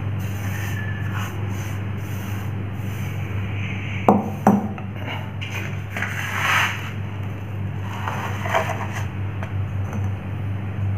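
Hands scraping, rubbing and pressing loose soil mix into a small clay pot, with two sharp knocks about four seconds in and a few rustling scrapes later. A steady low hum runs underneath.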